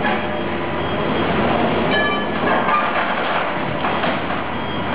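Continuous clatter and grinding of heavy machinery working on scrap metal, with a brief metallic ring about two seconds in.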